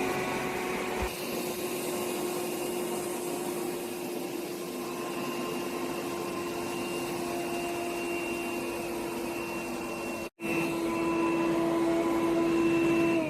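iRobot Roomba 105 robot vacuum running: steady suction motor noise with a constant whine, cut off for a moment about ten seconds in.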